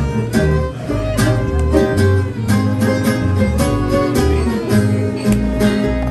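Acoustic string band playing a swing tune: fiddle over two acoustic guitars strumming a steady beat, with upright bass underneath.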